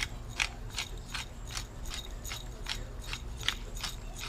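Pepper mill being twisted to grind pepper: a steady run of short ratcheting clicks, about two and a half a second.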